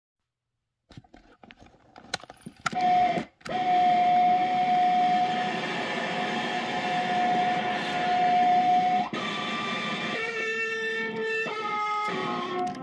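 Sound played from cassette tape for tape scratching: a few clicks and crackles, then one steady held tone for about six seconds, broken once briefly near its start. It stops suddenly and gives way to a series of stepped pitched notes.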